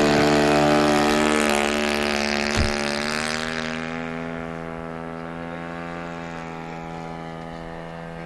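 ASP .70 four-stroke glow engine of a large radio-controlled Piper J3 Cub model running at full throttle through the takeoff and climb-out. It fades steadily as the plane climbs away. There is a brief low thump about two and a half seconds in.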